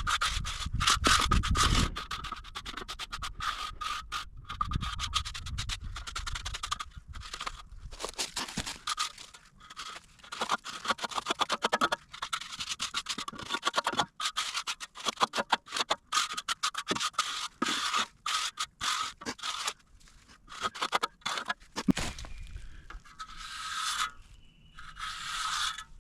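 Steel trowel scraping over freshly poured wet concrete in many quick, irregular strokes as the surface is smoothed.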